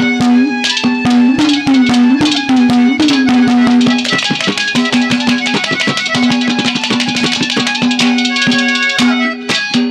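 Haryanvi ragni folk music in an instrumental break: fast hand-drum strokes under a held melody note that bends in pitch a few times in the first seconds and drops out briefly around the middle.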